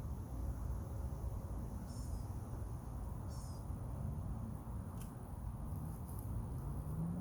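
Outdoor pond-side ambience: a steady low rumble with a couple of short, high, falling chirps from a small bird.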